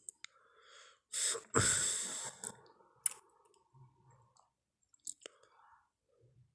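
Tyrannosaurus rex sound effect: two loud, breath-like blasts of noise about a second in, the second one longer, with a few sharp clicks and softer breathy sounds around them.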